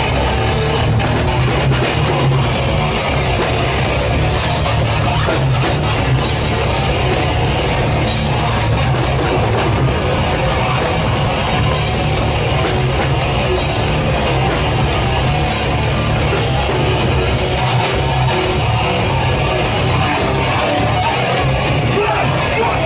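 Live rock band playing a song loud and dense, with guitars and a drum kit.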